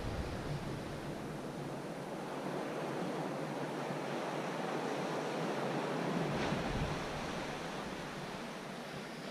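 Ocean surf washing along a rocky boulder shore: a steady rush that swells from about four to seven seconds in and then eases.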